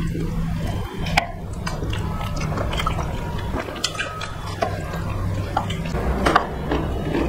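Close-up wet chewing and lip-smacking of people eating rice and curry by hand, with many short sharp clicks and a steady low hum underneath.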